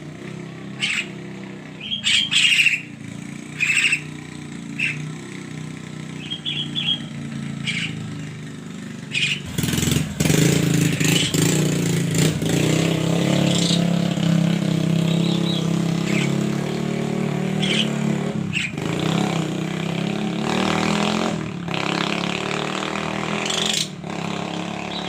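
A burung kerak bird gives short, sharp chirps and calls. About ten seconds in, a steady engine sound rises and runs loud under the calls for most of the rest, then fades near the end.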